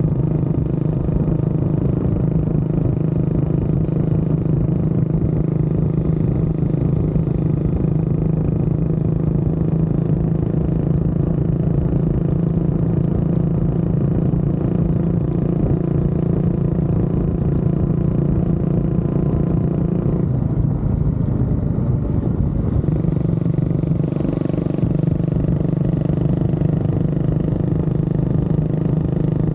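Honda CB400SS single-cylinder engine running steadily under way. About twenty seconds in, the revs drop briefly and then climb back.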